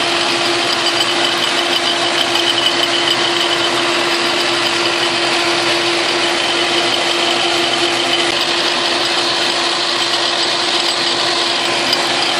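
Logan lathe running with an end mill in the spindle collet, milling the side of a tool-post nut block clamped to the compound: a steady mechanical drone with a steady tone in it.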